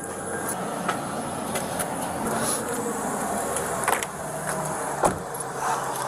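Steady vehicle engine and road noise picked up by a police body camera's microphone, with a few faint knocks.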